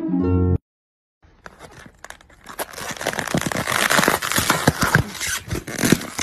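A snatch of music cuts off, and about a second later a styrofoam takeout clamshell is pried open and handled, a dense crinkling and creaking full of sharp crackles.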